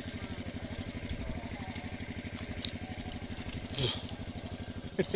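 An engine running steadily at idle with an even, rapid thudding beat, with one brief louder noise about four seconds in.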